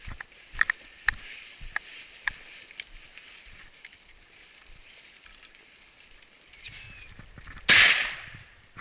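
A hunting dog's bell tinkling in short, irregular rings as the dog moves through the brush, then a single sudden, loud burst near the end that dies away within about half a second.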